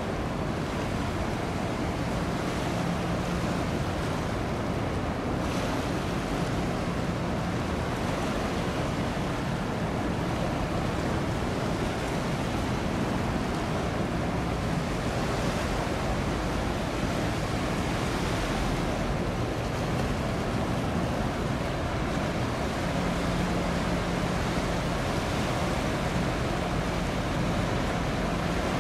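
Steady rush of wind and water, with a faint low hum from the passing container ship that swells twice.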